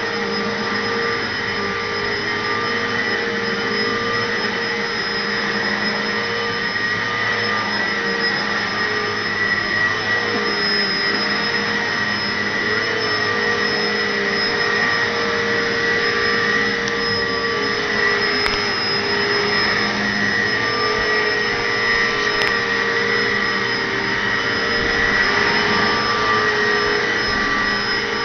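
Bagless upright vacuum cleaner running steadily: a constant motor drone with a high whine over it.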